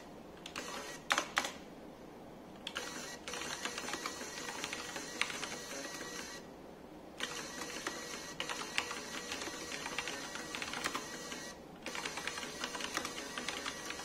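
Computer keyboard keys clicking in bursts of typing while a small thermal printer's stepper motor whirs in runs, feeding the paper back and then forward as each few typed characters are printed, with a few short pauses in the whirring.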